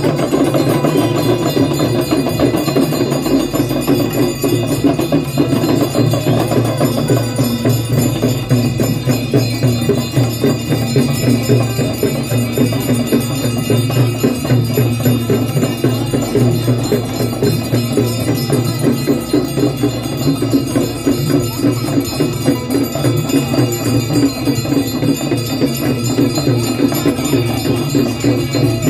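Hindu aarti ceremony music: bells and small percussion struck in a fast, steady rhythm, with ringing bell tones over devotional music, continuous and loud.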